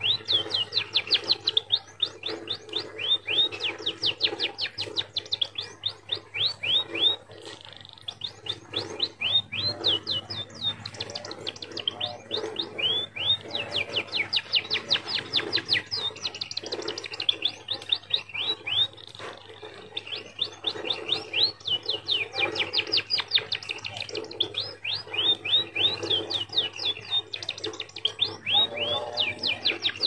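A hand-tame scaly-breasted munia (peking) singing a song trained to imitate a canary: long runs of rapid, repeated high chirps and trills, in several phrases broken by short pauses.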